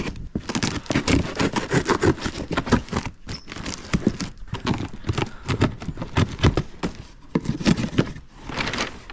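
A knife slicing through packing tape on a cardboard box, with the tape ripping and the cardboard flaps scraping and rustling in a quick, irregular run of strokes as the box is worked open.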